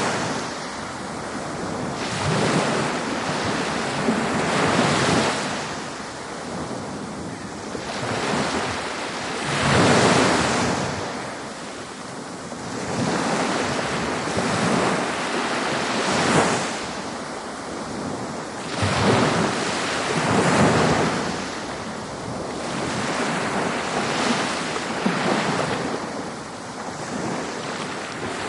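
Ocean waves washing onto a beach: continuous surf that swells and falls back every few seconds, with a louder surge about ten seconds in and another past the middle.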